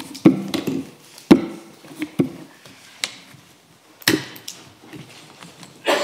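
Irregular sharp knocks and thuds of objects being put down and moved on tables, roughly one or two a second, each with a short ring.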